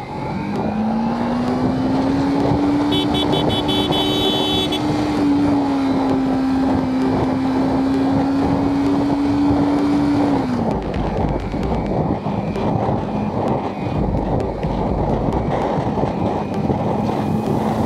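Motorcycle engine under steady throttle: its pitch rises over the first couple of seconds, holds, and falls away about ten seconds in as the throttle is rolled off. A loud rush of wind and road noise runs under it, and a brief high-pitched tone sounds about three seconds in.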